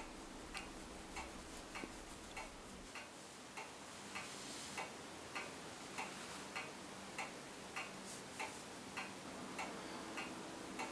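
A clock ticking steadily and faintly, a little under two ticks a second.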